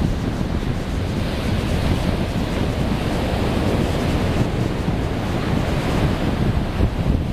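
Ocean surf breaking on a sandy beach, a steady wash of noise, mixed with wind buffeting the microphone.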